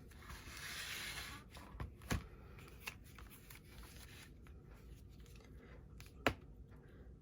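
Craft materials being handled on a work surface: a brief rustle in the first second or so, then two sharp taps, one about two seconds in and one about six seconds in, with faint handling noise between.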